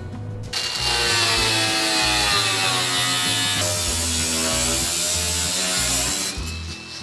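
Angle grinder with a cut-off wheel cutting the sheet-metal rear wheel well of a truck body. The high whine wavers in pitch under load, starting about half a second in and stopping about a second before the end, over background music with a steady beat.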